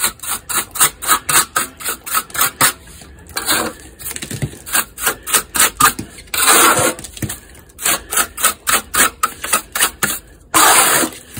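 Steel trowel scraping and chopping stiffening stucco mud on a metal hawk in rapid strokes, several a second, with longer scrapes about six and a half seconds in and near the end. The mud has begun to set into chunks and is being reworked into patch material.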